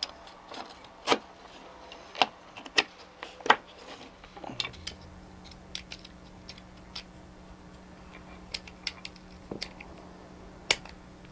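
Scattered sharp clicks and taps of a small metal-cased toy gear motor and its bracket being handled and fitted by hand. A cluster of clicks comes in the first few seconds, it is sparse in the middle, and there is one more click near the end.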